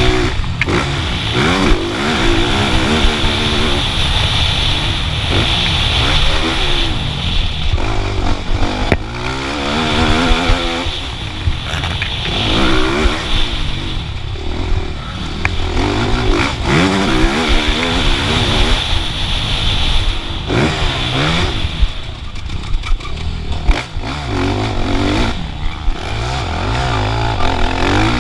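Motocross bike engine revving hard. Its pitch rises again and again through the gears and then falls off as the throttle closes, over wind rumble on the microphone, with a few sharp knocks.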